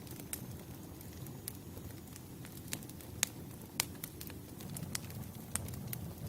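Wood fire crackling: a steady low rumble of burning logs with irregular sharp pops, two louder ones a little past the middle.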